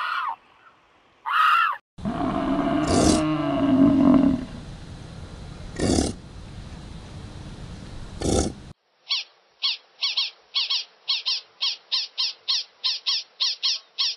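A short honking call opens, then a herd of bison gives a deep, grunting bellow, loudest about two seconds in. From about nine seconds a group of meerkats chirps rapidly, about three to four short calls a second.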